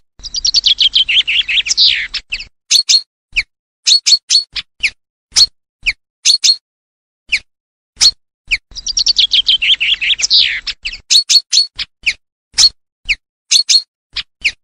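Chaffinch song played as a hunting lure: a fast run of notes falling in pitch and ending in a flourish, sung twice about eight and a half seconds apart. Short, sharp single call notes come every second or so in between.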